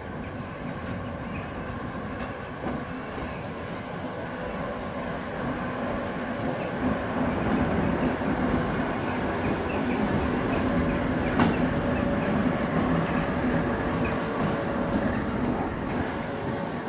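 2TE116 two-section diesel locomotive passing close by, its 16-cylinder diesel engines running with a steady low hum that grows louder as it comes alongside. A single sharp click stands out about two-thirds of the way through.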